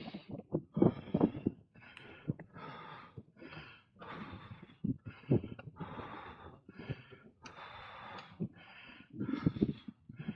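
A cyclist's hard breathing as he climbs a hill, quick breaths in and out about every half second. A few heavier puffs come about a second in and again near the end.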